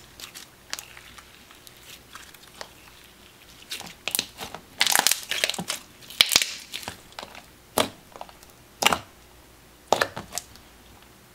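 Glossy avalanche slime being stretched, folded and poked by hand, giving irregular sticky crackles and sharp pops. They are densest around the middle, with a few single pops later on.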